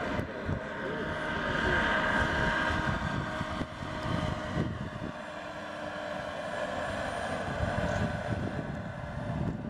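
Small gas-turbine engine of a radio-controlled scale CH-53A helicopter in flight, giving a steady high whine with rotor and air noise beneath.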